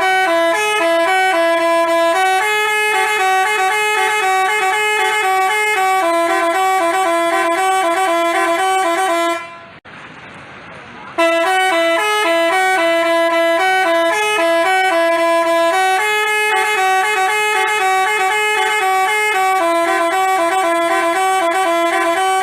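Telolet basuri musical bus horn playing a tune of short stepped notes. It stops for about a second and a half after nine seconds, then plays the same tune again.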